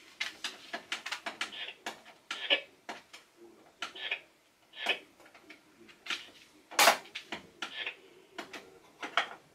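Hard plastic clicking and knocking as parts of a toy dollhouse are handled. The clicks and taps come at irregular intervals, and the loudest knock comes a little under seven seconds in.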